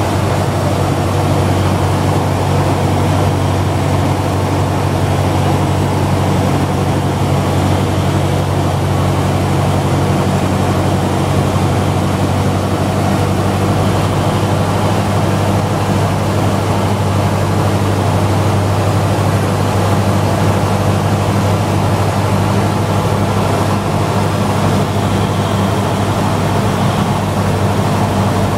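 Single-engine Cessna's piston engine and propeller running steadily, a low, even drone with rushing airflow noise, heard from inside the cockpit on approach to landing.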